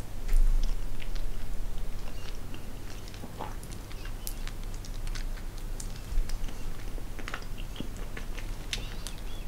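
A person chewing a liquid-filled gummy sweet (a Haribo Vulcano F!ZZ: wine gum, soft foam base and a sour liquid core), with scattered small mouth clicks and smacks. A dull low thump comes about half a second in and another about six seconds in.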